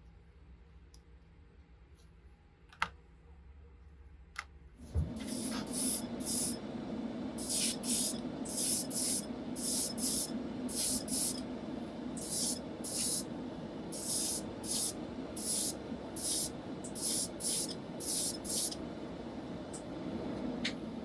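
Two sharp clicks, then about five seconds in a small air compressor starts with a steady hum. Over the hum come about twenty short, irregular bursts of hissing air as a spray trigger is pulled again and again.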